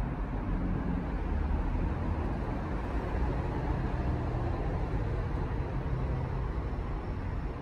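Steady low rumble of distant city traffic, with a faint hum underneath and no distinct events.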